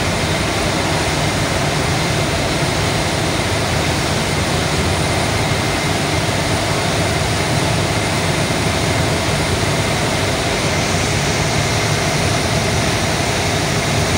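Boat engine running steadily under way, a constant low hum over the rushing noise of water churned up in the wake.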